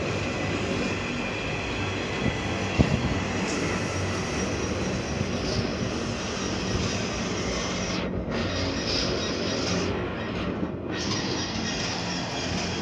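Freight train running past steadily on the rails, with a single sharp clank about three seconds in.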